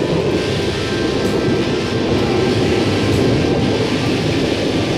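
A loud, steady rumbling noise with no rhythm and no clear pitch.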